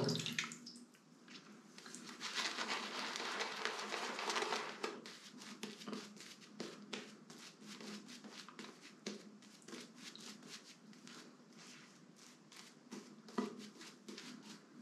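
Omega Roma Colosseum shaving brush working Saponificio Varesino Cubebe lather onto a cheek: a soft, hissy brushing for a few seconds, then a long run of quiet, irregular crackling clicks as the lather is spread.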